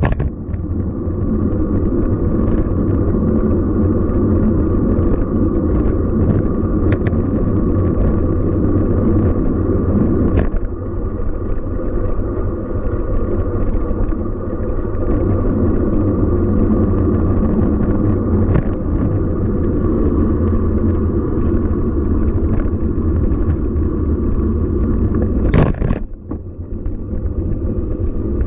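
Steady low rumble of a road bicycle riding on city streets, tyres on the pavement with wind on the microphone, and scattered light clicks. A sharp knock sounds near the end.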